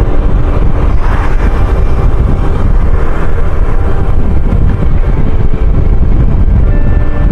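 Boda boda motorcycle taxi riding at speed: heavy wind rumble buffets the microphone, with the motorcycle's engine running steadily underneath.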